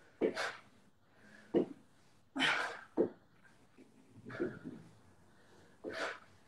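A person breathing hard from exertion: short, forceful exhales and huffs, about six of them at irregular intervals, one near the middle a longer hissing breath.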